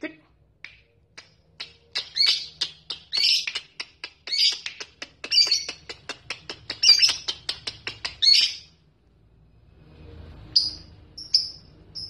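Lovebird ngekek: a long, rapid chattering run of sharp chirps that speeds up in the middle and lasts about eight seconds, then a short pause and a few single chirps near the end.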